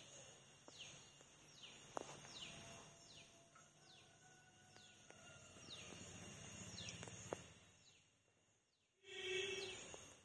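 Faint outdoor ambience with a bird calling over and over, a short falling chirp a little more than once a second. A few soft clicks fall in between, and a brief louder call comes near the end.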